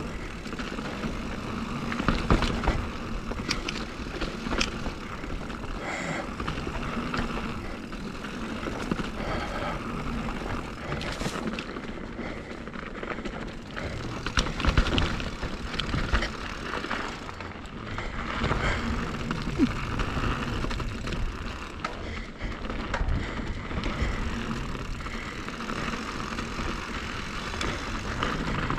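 Mountain bike descending a dirt trail: a steady rush of tyres on dirt and air past the bike, with frequent short knocks and rattles from the bike over rough ground, a cluster of sharper ones about halfway through.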